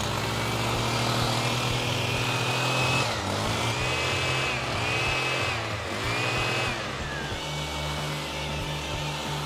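Husqvarna petrol hedge trimmer's small two-stroke engine running under cutting load, its pitch dipping and rising again about once a second in the middle as the throttle is worked.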